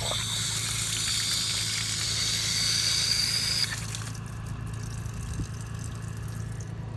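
Outdoor spigot turned on: water hissing through the valve and hose, loud for nearly four seconds and then settling to a fainter flow, as the newly rebuilt vacuum breaker is tested for leaks. A steady low hum runs underneath.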